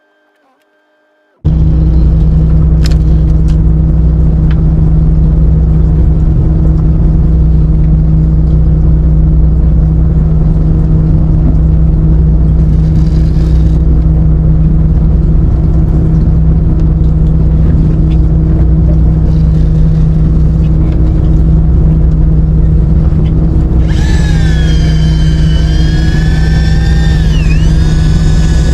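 Boat engine running steadily, a loud, even low hum that starts after a second and a half of silence. In the last few seconds a wavering, pitched sound with overtones, like a voice, rides over the engine.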